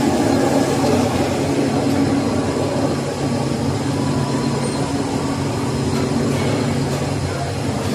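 Machinery of a running instant noodle production line, its drive motors and blowers giving a steady hum with a few held low tones.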